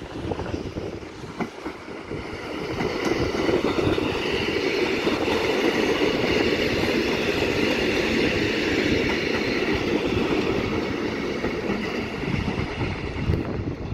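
Electric multiple unit passing close by: the rumble and hiss of its wheels on the rails build up over the first few seconds, hold steady and loud while the carriages go past, then ease off near the end as it draws away.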